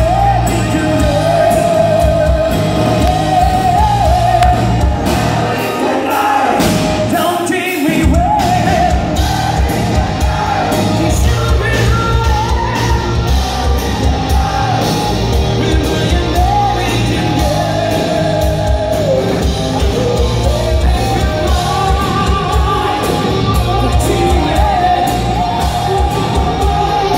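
Live hard rock band playing with singing, in a large concert hall. The bass and drums drop out briefly about six seconds in, then the full band comes back in.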